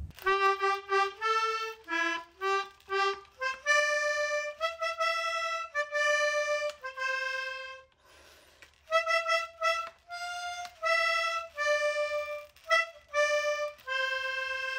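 Background music: a simple melody of single held notes on a reedy free-reed instrument, with a short break about eight seconds in.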